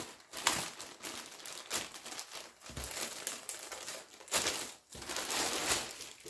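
Packaging crinkling and rustling in irregular handfuls as a garment is unwrapped from its parcel, louder for a stretch about four and a half seconds in.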